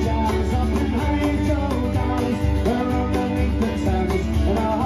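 Live acoustic folk band playing: fiddle, strummed acoustic guitar and cajon, with a man singing over a steady beat.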